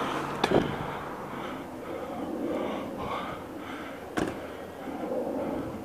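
A person breathing hard close to the microphone, with two brief knocks, about half a second in and about four seconds in.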